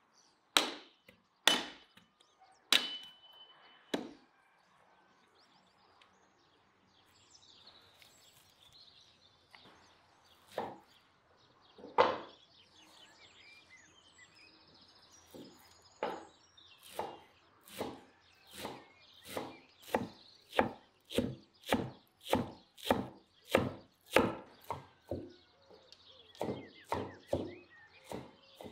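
A hatchet striking firewood: a few separate sharp blows in the first four seconds, one ringing briefly. Then a kitchen knife cutting fresh herbs on a wooden cutting board, a few scattered cuts at first, then steady chopping at about two chops a second.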